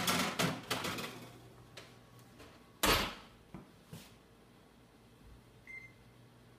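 Metal oven rack and baking sheets clattering as the rack is pushed back in, then the wall oven's door shutting with a single loud thud about three seconds in. Near the end comes a short electronic keypad beep from the microwave control panel as a timer is set for the remaining five minutes of baking.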